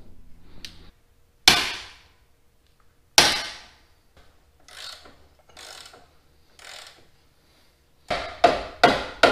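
Long-handled ratchet and socket working a rusted leaf-spring shackle bolt. Two sharp metallic cracks come about a second and a half apart, then a few fainter scrapes, and near the end a quick run of clicking knocks as the bolt is turned out.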